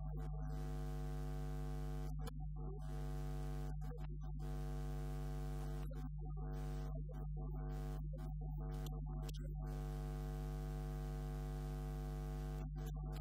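Steady electrical hum with many overtones, unchanging in pitch and level; no voice comes through it.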